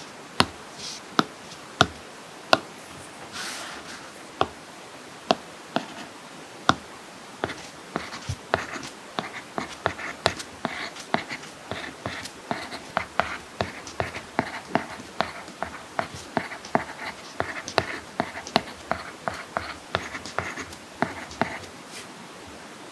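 Apple Pencil tip tapping on an iPad screen fitted with a paper-like screen protector: single taps at first, then quick runs of taps, a few a second, from about eight seconds in. A short scratchy stroke about three and a half seconds in.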